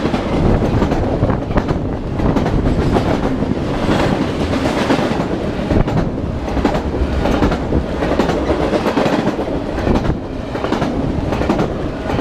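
Long freight train's cars rolling past, a steady loud rumble and rattle with repeated clacks of the wheels over the rail joints.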